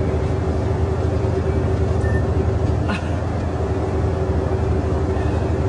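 Steady engine and road rumble of a bus heard inside the passenger cabin, with a constant droning hum over it.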